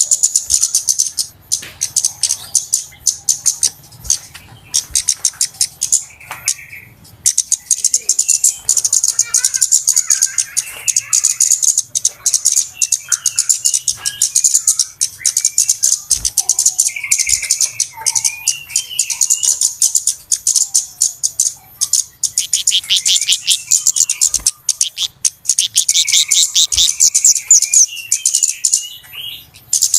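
Flowerpecker (cabe-cabean) calls used as a bird-trapping lure: rapid trains of high, sharp ticking notes with short pauses, and scattered lower chirps in between.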